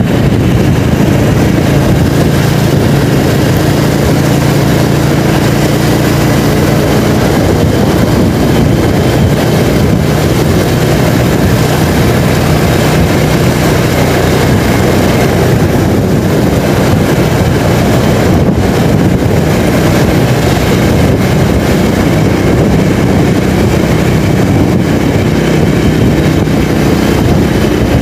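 Motorcycle riding at speed: the engine runs steadily under a constant rush of wind on the microphone. A low engine hum shows through more clearly in the first several seconds.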